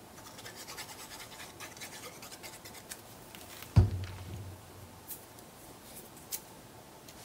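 Nozzle of a liquid glue bottle scratching along a paper strip as glue is run onto it. A single loud thump comes a little under four seconds in, then a couple of light clicks as the strip is handled and pressed into place.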